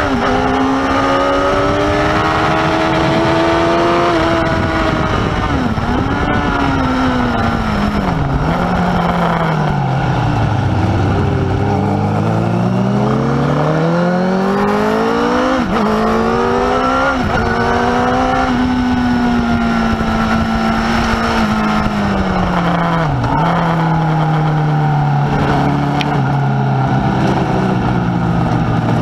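Onboard sound of a Honda sport motorcycle's engine at speed on a track, with wind rush over the fairing. The revs climb, fall in steps through downshifts as the bike brakes into first gear, climb again, then settle lower near the end.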